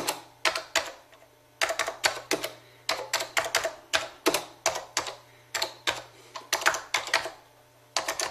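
Typing keystrokes clicking in quick runs of a few strokes a second, with a short pause about a second in and another near the end: a typing sound effect timed to the caption being typed out letter by letter.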